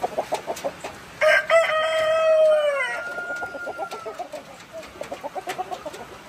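A rooster crows once, a loud call of about two seconds that starts about a second in and drops in pitch as it ends. Hens cluck over and over throughout.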